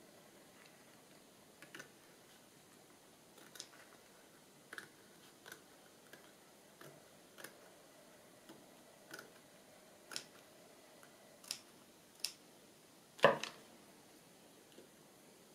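Scattered soft taps and clicks of paper and craft pieces being handled and pressed down on a tabletop, with one sharper knock about 13 seconds in.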